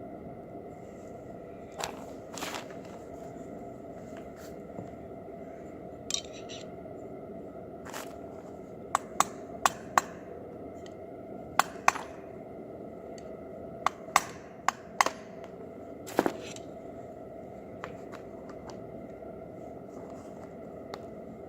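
A series of sharp clicks and knocks, several in quick pairs, over a steady hum.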